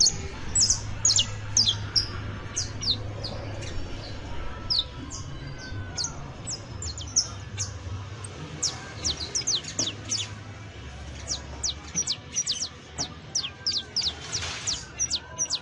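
Saffron finch (canario criollo or basto) singing: a quick run of short, sharp, high chips, each falling quickly in pitch, coming thicker in the second half.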